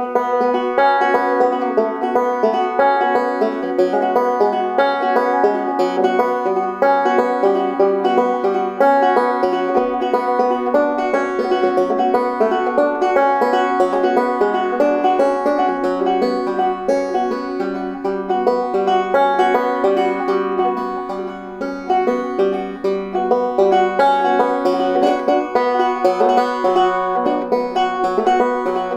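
Five-string banjo in sawmill tuning (gDGCD) playing a slow, melancholic instrumental tune, its notes picked in a continuous stream.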